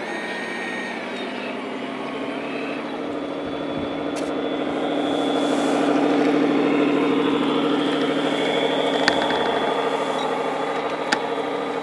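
Radio-controlled Scania tipper truck working, with a steady mechanical hum that grows louder in the middle as its trailer body tips up. A few light clicks are heard.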